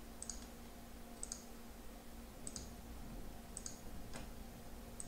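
Computer mouse button clicking: about five clicks roughly a second apart, each a quick press-and-release pair, over a faint steady hum.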